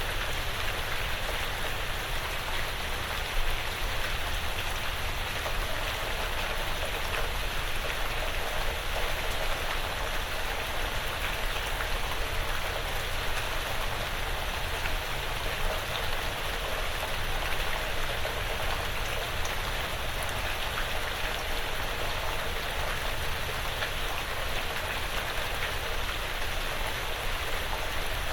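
Steady light rain falling on a porch roof and the woods around it, an even patter of drops with no change in strength.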